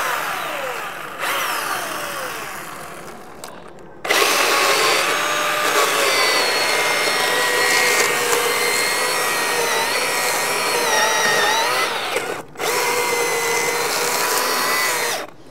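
Milwaukee M18 cordless chainsaw's electric motor and chain. It is run up and winds down twice in falling whines, then cuts steadily into a log from about four seconds in. The saw stops for a moment about twelve seconds in, resumes, and stops near the end.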